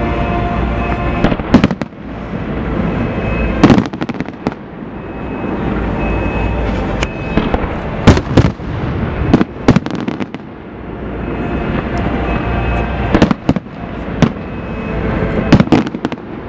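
Fireworks going off: a dozen or so sharp bangs of bursting shells, several in quick pairs, over a continuous crackle and low rumble.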